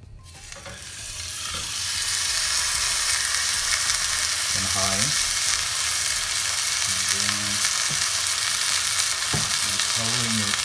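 A thick T-bone steak sizzling in a pan of hot oil as it is laid in to sear. The sizzle builds over the first two seconds, then holds steady.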